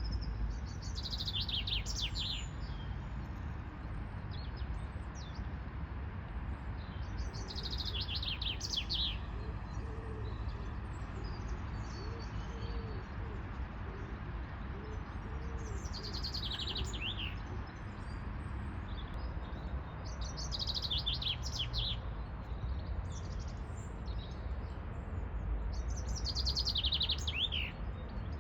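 A songbird singing a short phrase of rapid notes that slide downward, repeated five times several seconds apart, over a steady low rumble of background noise.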